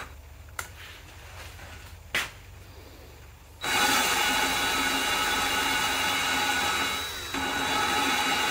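Cordless drill spinning an engine valve against its seat to lap it with valve-grinding compound: a steady whir with a grinding rub that starts about three and a half seconds in, after a few handling clicks, and eases briefly near the end.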